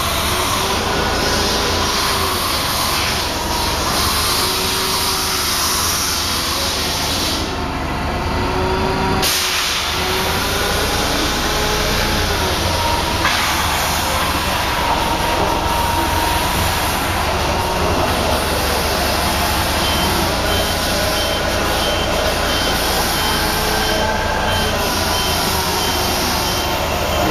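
Forklift running as it handles a vacuum lifter, its engine and hydraulics rising and falling in pitch over and over, over a steady hiss. A warning beeper sounds in a regular series of beeps near the end.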